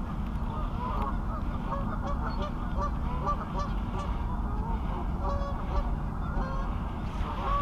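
A flock of geese honking without a break, many calls overlapping one another, over a steady low rumble.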